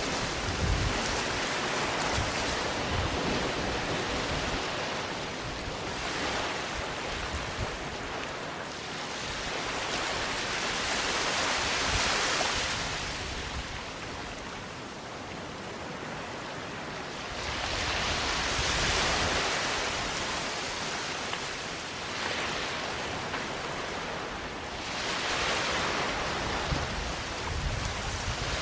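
Waves breaking and washing onto a sandy beach, the surf swelling and fading roughly every six seconds.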